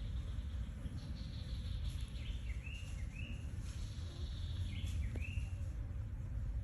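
Steady low rumbling outdoor noise, with a few short, high, arched chirping calls from an animal: two or three a little over two seconds in and another two about five seconds in.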